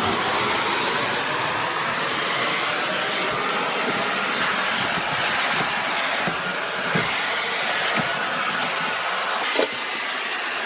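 Shark NV360 Navigator Lift-Away upright vacuum running steadily: a loud rush of air with a thin motor whine over it, and a few short knocks, the sharpest about a second before the end.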